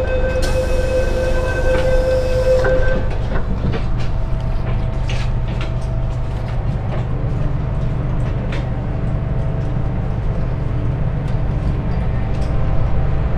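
MTR M-train electric multiple unit: a held warning tone and a hiss of air for about the first three seconds as the doors close, then the train pulls away with a low electric traction hum and wheels clicking over rail joints.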